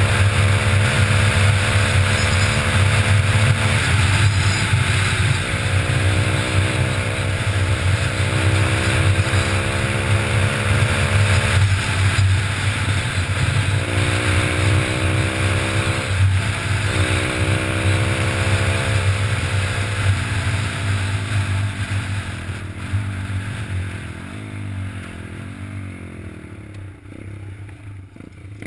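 Pit bike's single-cylinder engine under way, its pitch climbing through each gear and dropping back at the shifts, then falling as the bike slows down in the last several seconds. A steady low wind rumble on the microphone runs under it.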